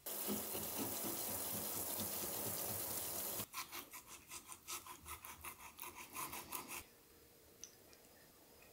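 A knife scraping the scales off a red fish: first a continuous rasping scrape for a few seconds, then, after a cut, quick rhythmic scraping strokes, about six a second, that stop abruptly a little over two-thirds of the way through.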